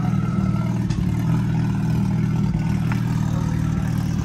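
An engine running steadily, a low even drone with no change in speed.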